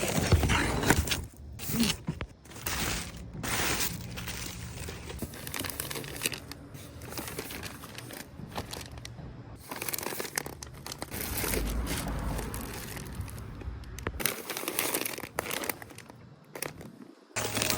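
Packaging handled and torn open by hand: irregular bursts of crinkling and tearing, stopping briefly near the end.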